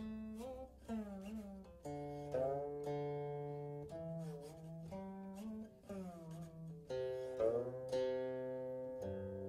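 Background music: a plucked string instrument playing slow, separate notes, several of them bent and wavering in pitch.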